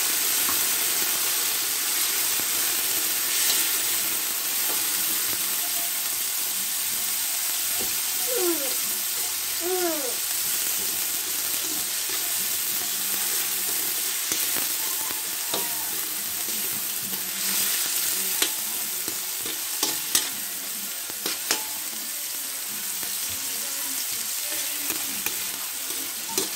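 Carrots, onion and garlic sizzling in oil in a wok, stirred with a metal spatula that scrapes and clicks against the pan now and then.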